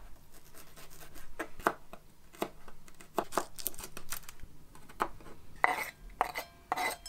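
A small paracord neck knife chopping an onion on a wooden cutting board: a string of irregular knocks as the blade meets the board. Near the end, a few louder scrapes as the chopped food is pushed off the board into a glass bowl, with a faint ring from the glass.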